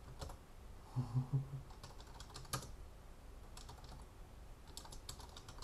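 Computer keyboard typing: several short runs of key clicks with pauses between them.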